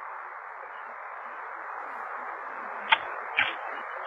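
Steady, narrow-band hiss of a doorbell camera's microphone, with two short clicks about three seconds in.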